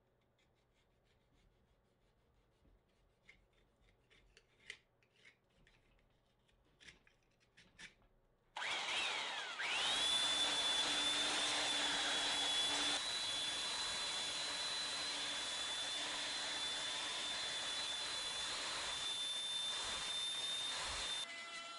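A handheld belt sander switches on about eight seconds in. Its whine rises and then holds steady and high while it sands the face of a glued-up white pine block. Before that come a few faint scrapes and clicks of a utility knife trimming dried polyurethane glue off the wood.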